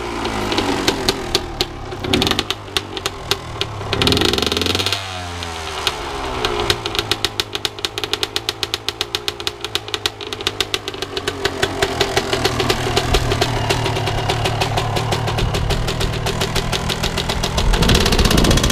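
Yamaha YZ125 two-stroke single-cylinder dirt bike engine running on a stand, idling with rapid firing pulses between throttle blips. The revs rise and fall about four seconds in, and a loud rev comes near the end.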